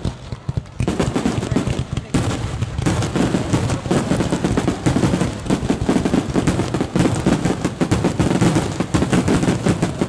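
Aerial fireworks in a dense, rapid barrage: shell bursts and crackling reports come many times a second, close on one another, the closely packed volley of a show's finale. A short lull near the start, then continuous cracking.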